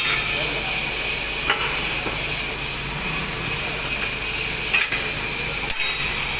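Heavy machinery running steadily with a low hum and a high-pitched whine, with a few sharp metallic clinks.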